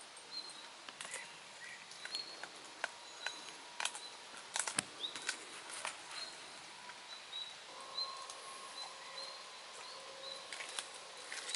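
German shepherd chewing a piece of raw chicken: irregular wet crunches and clicks of its teeth, loudest about halfway through. Faint high chirps repeat in the background.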